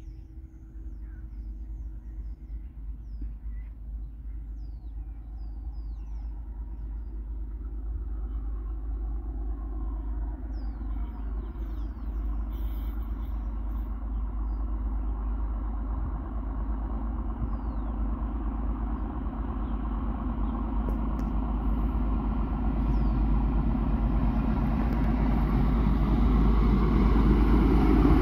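NSW TrainLink XPT diesel-electric passenger train approaching. The rumble of its leading power car's diesel engine and its wheels on the rails grows steadily louder as it nears.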